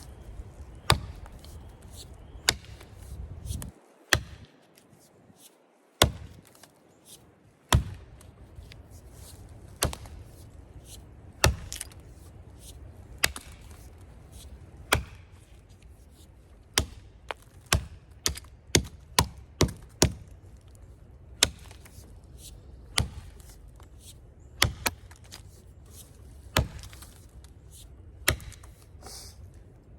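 Bilnas-style bushcraft hatchet chopping into a standing poplar tree to fell it, in sharp blows with the steel head biting into the wood. The blows mostly come one every one and a half to two seconds, with a quicker run of strikes around twenty seconds in.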